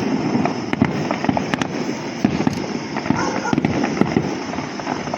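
Fireworks going off in a dense, continuous run of rapid pops and crackles, with sharper bangs every so often.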